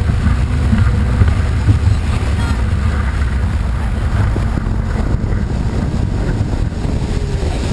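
Small boat's outboard motor running steadily under way while towing a tube, mixed with a steady rush of wind and water.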